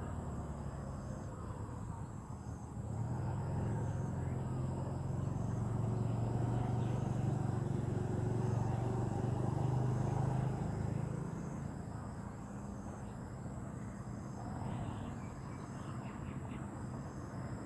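Rural outdoor ambience with a low engine rumble that swells for several seconds and then fades, like a vehicle passing at a distance. Faint small-bird chirps come near the end.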